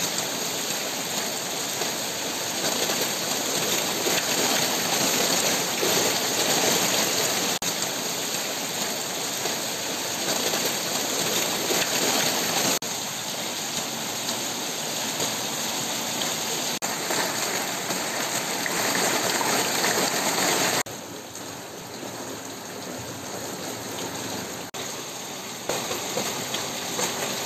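Heavy rain pouring down with running water, a dense steady hiss that jumps in level at several cuts and is quieter in the last several seconds.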